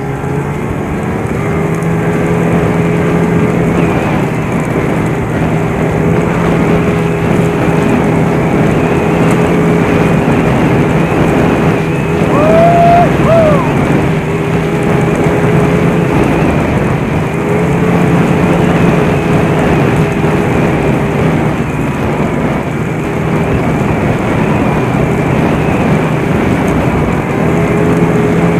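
Snowmobile engine running at a steady cruising speed, its pitch easing and picking up slightly every few seconds, over a loud rush of track and snow noise. A short higher squeal rises and falls about twelve seconds in.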